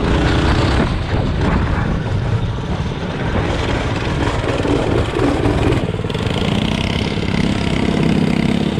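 Mini bike's small engine running while being ridden, loud and rough. Its note holds steadier over the last few seconds.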